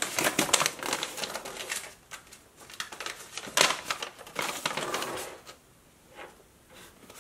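A folded paper instruction sheet being handled and unfolded, crackling and rustling in quick bursts, dying down after about five and a half seconds.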